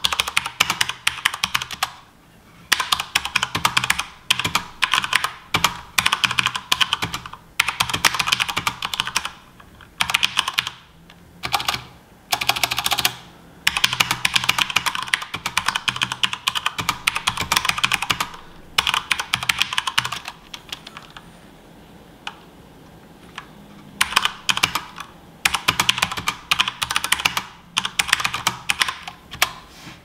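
Fast typing on an HP OMEN Encoder mechanical keyboard with Cherry MX Brown switches, which are tactile and non-clicky. The key strokes come in dense runs of a few seconds with short pauses between them, and there is a longer pause about two-thirds of the way through.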